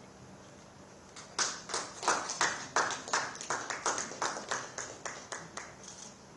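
Hand clapping: a run of distinct claps, about three a second, that begins about a second in and dies away near the end.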